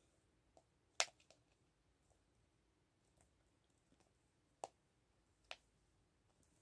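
Sharp clicks of a plastic gachapon capsule being twisted and pried at by hand to open its two halves. There is one loud click about a second in, two more toward the end, and faint clicks in between.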